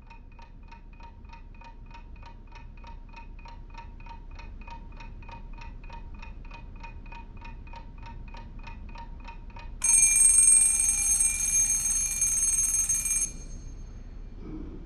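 Mechanical alarm clock ticking steadily, about four ticks a second. About ten seconds in, its bell goes off with a loud ringing that stops abruptly after about three and a half seconds.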